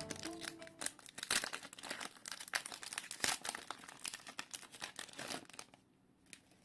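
Plastic wrapper of a Naruto Kayou trading-card pack crinkling and tearing as it is opened, in a dense run of crackles that stops about a second before the end.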